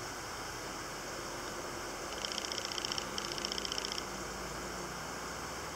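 A small bird calling in rapid, evenly repeated high notes, two short runs about two seconds in, over a steady background hiss.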